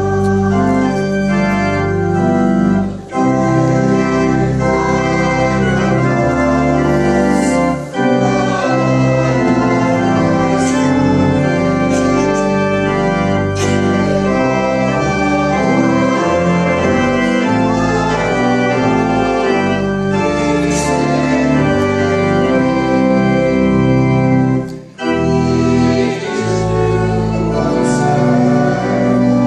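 Church organ playing a recessional hymn in sustained full chords, with brief breaks between phrases about three, eight and twenty-five seconds in.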